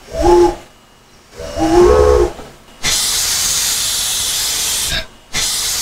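Steam whistle of Virginia & Truckee locomotive #29 sounded twice, a short toot then a longer blast, followed by a loud, steady hiss of escaping steam that cuts out for a moment near the end and then resumes.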